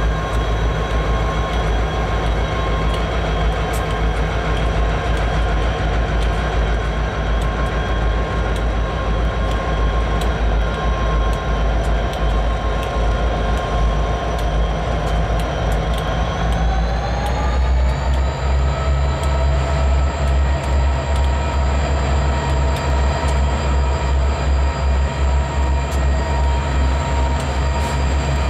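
Diesel-electric freight locomotives passing close by, engines running with a steady whine over the low rumble of the moving train. About seventeen seconds in, the engine note rises and settles at a higher steady pitch.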